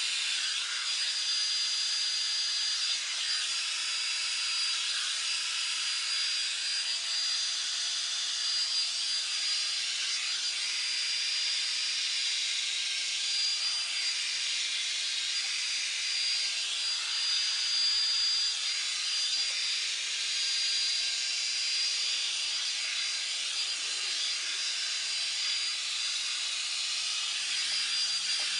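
Revlon One Step Volumizer hot-air brush dryer running steadily: a rush of blown air with a steady high whine, and the brush swishing through hair every few seconds.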